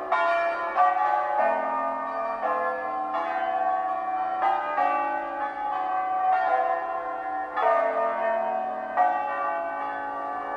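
Tower bells played as a slow tune from inside the bell tower: single notes struck roughly one a second, each ringing on and overlapping the next, fairly loud.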